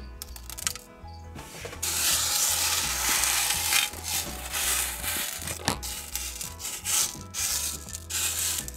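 Small black gravel being spread and pushed by hand across the glass floor of a terrarium: gritty scraping and rustling in uneven strokes, starting about two seconds in. Soft background music plays underneath.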